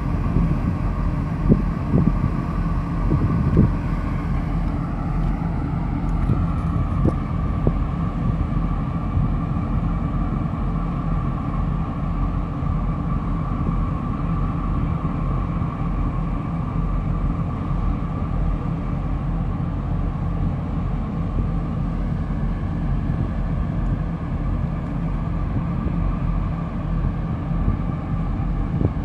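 Ship engines running: a tugboat working alongside a large container ship, heard as a steady low rumble with a steady whine above it. A few brief thumps come in the first few seconds.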